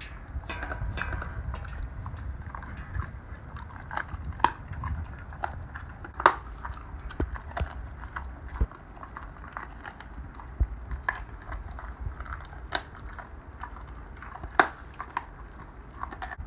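A Weimaraner–Labrador mix dog eating raw meat and bones from a stainless-steel bowl: chewing and crunching with irregular sharp clicks and cracks, the loudest about six seconds in and again near the end.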